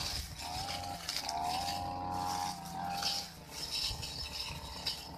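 Brush cutter fitted with a cutting blade, its engine revving up and dropping back several times as it is swung through grass, with a swishing hiss from the cutting.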